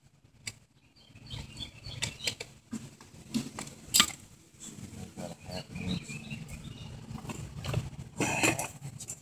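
Hands working on a chainsaw and shifting metal hand tools: scattered clicks, light knocks and rustling, with one sharp click about four seconds in.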